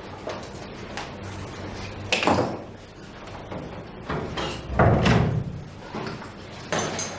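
A door being opened and pushed shut, with a sharp knock about two seconds in and a heavier thud about five seconds in.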